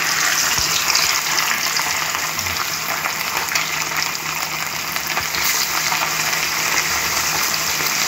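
Fish steaks sizzling and crackling steadily in hot frying oil in a non-stick wok.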